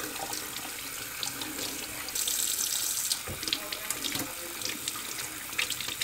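Kitchen faucet running into a stainless-steel sink, the stream splashing over hands as they rub and rinse salted raw fish fillets, with small wet splats throughout. The splashing grows a little louder about two seconds in.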